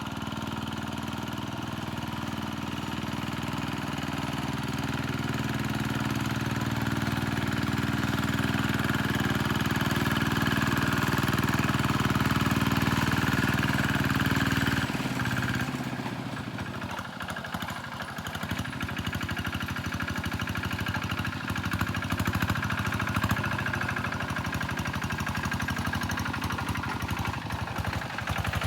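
Tractor engine running flat out with a steady drone that grows louder, then about halfway through the note drops suddenly and the engine runs rough in uneven pulses: the engine coughing under full throttle.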